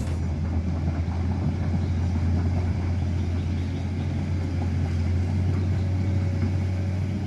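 Komatsu PC210 excavator's diesel engine running steadily as the machine tracks through a muddy river, a constant low hum.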